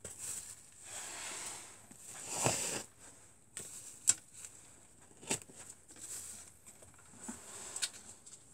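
Wooden arrows being pulled out of a polystyrene foam target: two scraping draws, the second louder, then a few sharp clicks as the arrows are handled.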